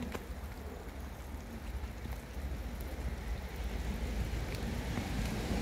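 Steady rain falling on a wet garden: an even hiss with a few faint drop ticks, over a low rumble, growing slightly louder towards the end.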